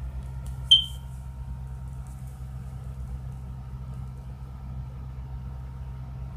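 Steady low hum of room noise, with one short, sharp, high-pitched ping that rings briefly less than a second in.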